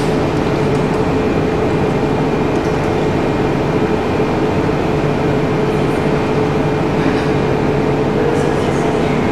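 Steady mechanical hum and rushing noise with a faint constant tone, unchanging throughout.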